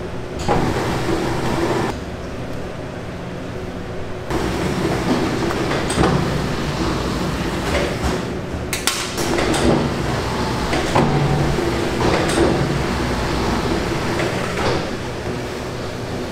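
Commercial bakery workroom: a steady machine hum with scattered knocks and clatter, busiest in the second half.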